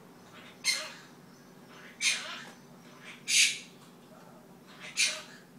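Quaker parrot (monk parakeet) squawking: four short calls about a second and a half apart.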